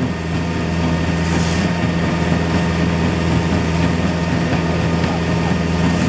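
Concrete pump's engine running steadily while it pushes concrete through the hose into the slab, a constant drone with a low hum.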